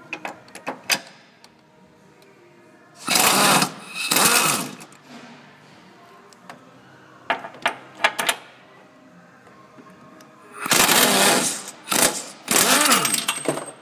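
A power wrench running in four short bursts of about a second each, its pitch bending up and down, as it backs out the 15 mm bolts of the engine mount. Sharp metal clicks of the socket go on and off the bolt heads in between.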